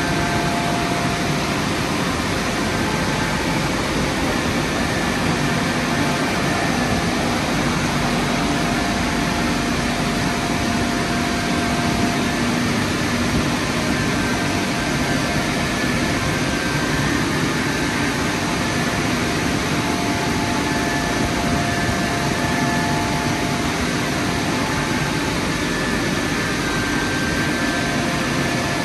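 Drying blowers of an Istobal M9+ gantry car wash running: a steady, loud rush of air with a faint fan hum.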